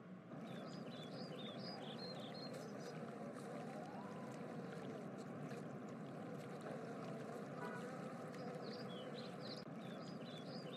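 Faint outdoor ambience: a steady low rush of background noise, with birds chirping in two spells, one in the first few seconds and one near the end.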